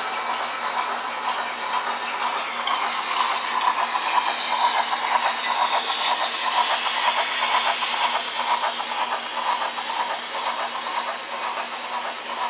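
Model train rolling past close by: a steady rattle of small wheels clicking over the rail joints with a hiss of motor and track noise, growing louder toward the middle and easing a little near the end.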